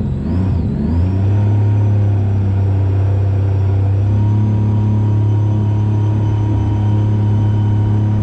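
Jet boat's Rotax 4-TEC 250 engine revving up in the first second, then running at a steady speed under way. It makes a steady low drone with a thin high whine above it.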